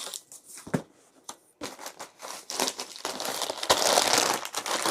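Packaging in a meal-delivery box being handled and pulled apart, crinkling and rustling. There are a few sharp taps at first, then the crinkling builds and is loudest near the end.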